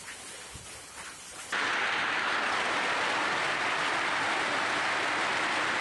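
Hailstorm with heavy rain pouring down, at first a softer patter with a few sharper hits, then abruptly much louder about a second and a half in, a dense, steady hiss of downpour.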